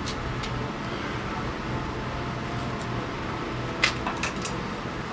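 Steady low hum with a few light clicks and taps, most of them about four seconds in, as an extension cord and wiring are handled against a wall.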